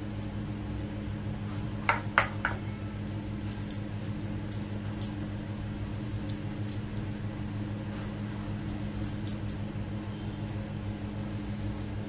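Steel spoon clinking against a steel bowl and scraping on a marble rolling board while spooning and spreading vegetable filling on rolled dough. A few light clinks, the loudest about two seconds in, over a steady low hum.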